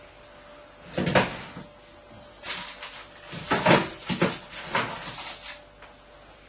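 Oven door opened and a metal baking tray pulled out of the oven, a string of sharp knocks and metallic clatters: one about a second in, then several more in quick succession.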